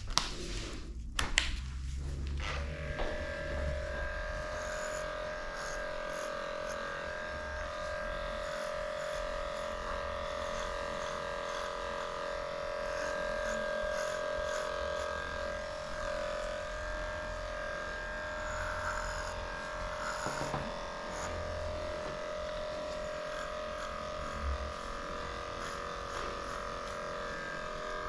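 A few sharp clicks as a new blade is fitted to an electric dog clipper, then the clipper switches on about two and a half seconds in and runs with a steady hum.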